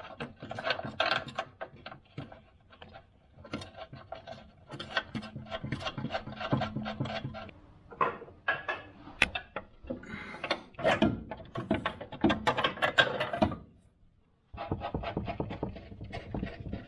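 Hands working on a Land Rover Discovery 3's front upper suspension arm and the plastic liner around it: irregular clicks, small knocks and rubbing. It breaks off briefly near the end and then picks up again.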